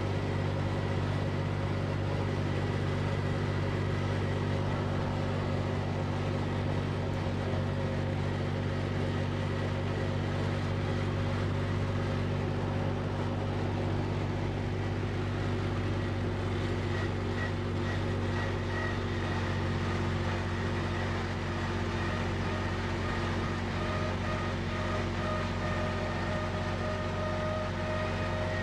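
Tractor engine running at a steady speed while driving along, a constant drone with faint steady whines above it.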